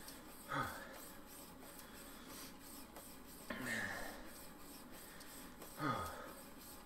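A man exercising on a stationary bike breathes out heavily three times, each breath a short falling puff, a few seconds apart.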